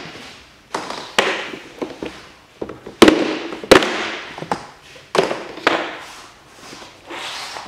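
Interlocking plastic floor tiles being snapped together by hand: a series of sharp plastic snaps and clacks, each followed by a brief scraping rustle as the tiles are pressed flat and their edge loops lock.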